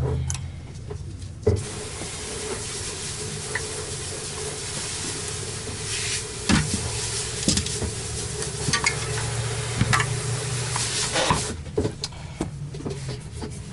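A steady hiss that starts suddenly about a second and a half in and cuts off near the end, with a few sharp clicks and knocks over it.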